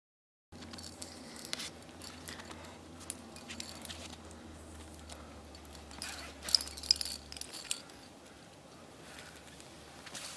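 Faint rustling and scattered small clicks of a climber moving on a rock face, with metal climbing gear clinking on the harness and a few sharper clicks about six and a half seconds in. Under it a low steady hum stops about seven and a half seconds in.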